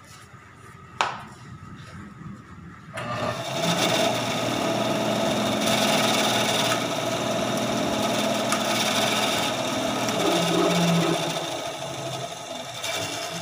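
TORQ BS250 10-inch band saw with its 375 W induction motor, starting up about three seconds in and running steadily with a motor hum and blade noise, then dying away near the end as it is switched off. A sharp click about a second in.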